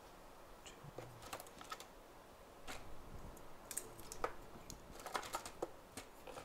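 Faint, irregular clicks and taps of typing on a computer keyboard, some keys struck in quick little runs and others alone.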